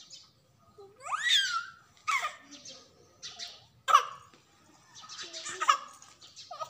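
A baby's short, high-pitched squeals and fussy cries, about five of them, the first sweeping sharply upward in pitch; the sounds of an infant growing fretful just before breaking into crying.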